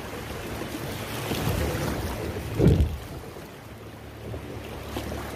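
River water rushing through a shallow riffle around a drifting kayak, with wind on the microphone. A short, loud low burst comes about two and a half seconds in, and the rush is quieter after about three seconds.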